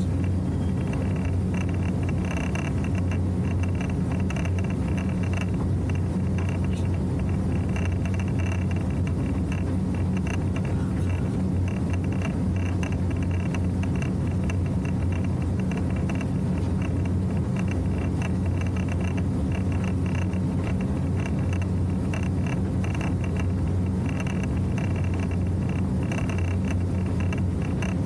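Motorboat running steadily at cruising speed: an even, low engine drone with a steady hum, mixed with the rush of wind and water along the hull.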